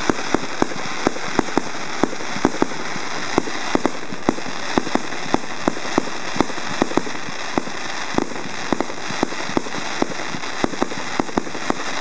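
Fireworks going off: a continuous run of sharp bangs and pops, several a second at irregular spacing, over a steady hiss.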